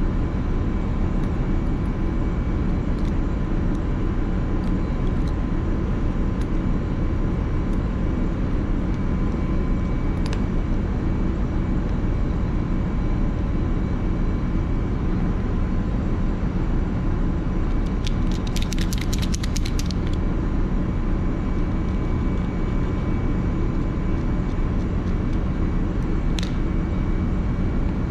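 Steady low drone of a ship's machinery, with faint steady whining tones on top. Small clicks come from the metal parts of an oil mist detector being handled, and a quick rattle of clicks lasts about two seconds, some two-thirds of the way through.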